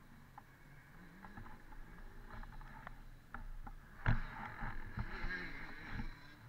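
Dirt bike engine idling, its low pitch wavering, with a few light clicks. About four seconds in there is a loud thump, followed by rustling for a couple of seconds.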